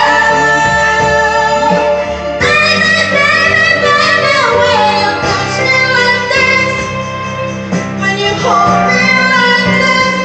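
A woman singing into a microphone over backing music, holding long notes, with a slow downward slide in pitch about four seconds in and a rise near the end.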